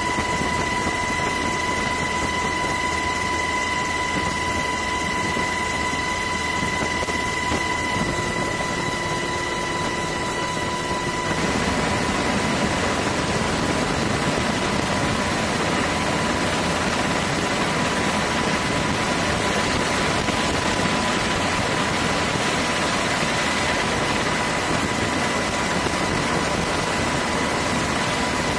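Steady aircraft engine noise with a constant high whine running through it. The sound changes character about eleven seconds in, where the noise gets fuller and the whine fainter.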